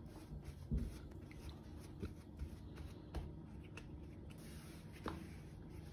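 Hands pressing and stretching pizza dough flat on a semolina-dusted metal board: faint soft patting and rustling, with a few light knocks.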